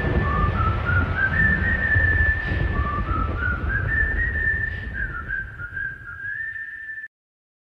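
Soundtrack music with a whistled melody stepping up and down over a heavy low bass bed, fading and then cutting off abruptly about seven seconds in.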